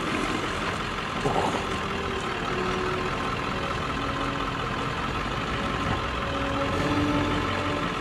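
Truck engine idling steadily, heard from inside the cab.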